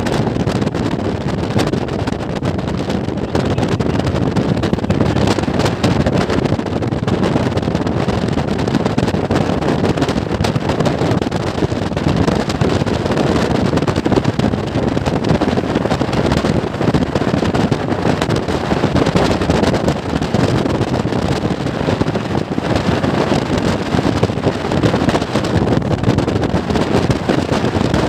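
Steady loud rush of wind buffeting the microphone on a speedboat under way, with the boat's engine running beneath it.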